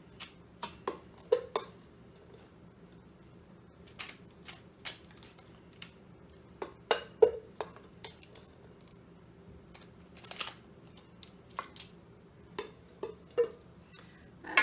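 Metal spoon scraping and clinking against a stainless steel mixing bowl in irregular taps, a few of them sharper clinks that ring briefly, as crumbly oat-and-peanut topping is scooped out.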